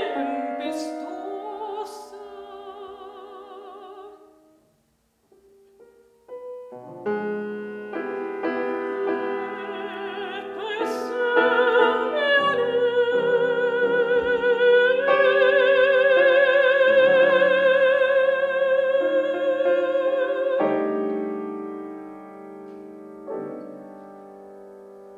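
Classical art song for soprano and piano. A sung note fades away and there is a short silence about five seconds in. Piano chords enter, the soprano returns and holds a long note with vibrato, then the piano rings on alone.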